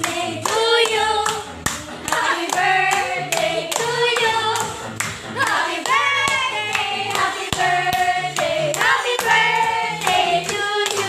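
Voices singing, with hands clapping in a steady rhythm, over a repeating bass line.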